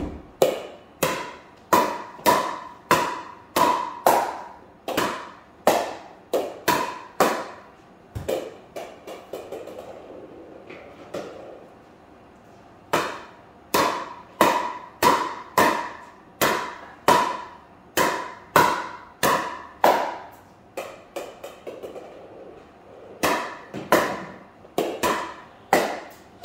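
Pickleball volley drill: sharp pops of a paddle hitting the hollow plastic ball, with the ball's rebounds, about two hits a second and ringing in a hard-floored room. The rally breaks off twice for a few seconds, leaving only a few fainter knocks.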